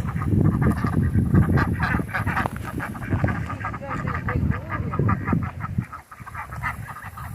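A flock of hungry chickens calling and squawking while they eat scattered feed, with a dense patter of short clicks and scuffs that thins out toward the end.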